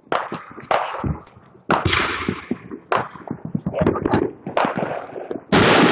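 Firecrackers popping in quick, irregular cracks, with the loudest burst of crackling near the end.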